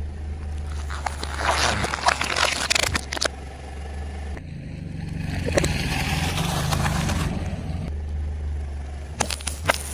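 A car tyre rolls over and crushes objects: bursts of crackling and crunching over the car's steady low engine hum. The crunching comes about a second in, swells again in the middle, and returns as sharp cracks near the end.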